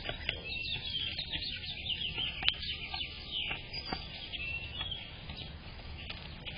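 Small birds calling: many quick, high chirps and short whistled notes overlapping, with a single sharp click about two and a half seconds in.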